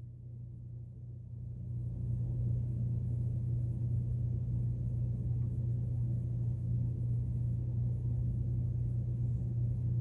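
A steady low hum with a rumble over it that swells about two seconds in and then holds.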